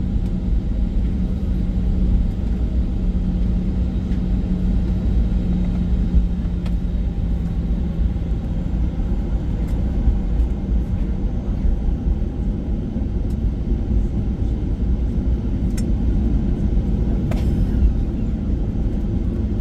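Cabin noise inside a Boeing 737-800 taxiing after landing: a steady low rumble from the idling engines and airframe. A steady hum fades out about eight seconds in, and a few faint clicks sound near the end.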